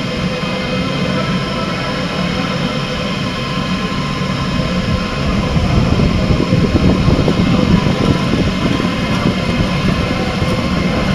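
Delta WASP 3MT delta 3D printer with a pellet extruder running mid-print: a continuous mechanical drone with many fine steady whining tones in it. It grows louder and rougher about halfway through.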